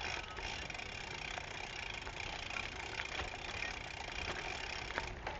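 Steady rolling noise of a gravel bike on a dirt and gravel trail, with scattered light ticks and crunches.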